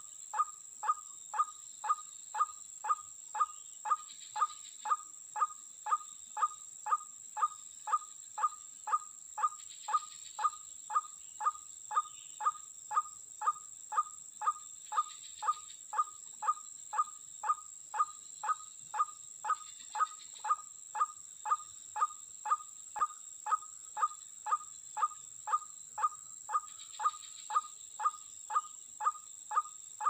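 White-breasted waterhen (ruak-ruak) call: a short falling note repeated about twice a second in an unbroken, even rhythm, with a steady high-pitched whine underneath.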